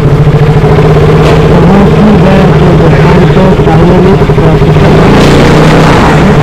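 Motorcycle engine running at a steady cruising speed while riding, its pitch holding nearly level, heard under heavy wind noise on the microphone.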